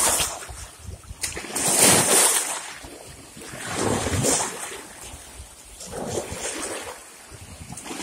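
Small waves washing in and splashing against shoreline rocks, one surge about every two seconds.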